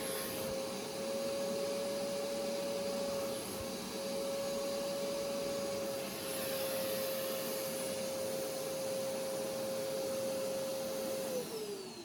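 Hoover pet stain carpet cleaning machine running: a steady motor whine over a rushing suction hiss. Near the end it is switched off, and the whine falls in pitch as the motor stops.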